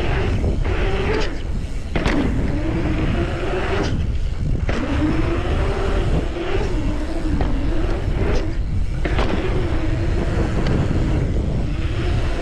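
Knobby mountain-bike tyres humming on paved asphalt, the hum rising and falling in pitch as the bike speeds up and slows through berms and rollers, with wind rushing over the microphone.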